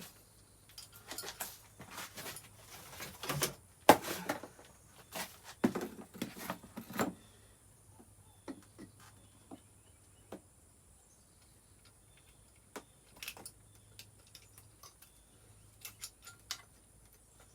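Hand work on a dirt bike's carburetor: a busy run of clicks, knocks and rattles of parts and tools being handled, the sharpest knock about four seconds in, then scattered single clicks. The engine is not running.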